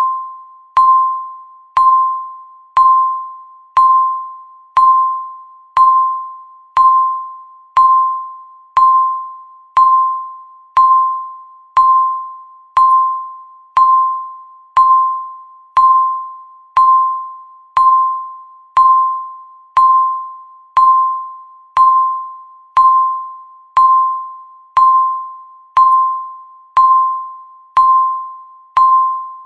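Countdown timer beeping once a second: the same short tone, struck sharply and fading away, repeated steadily about thirty times.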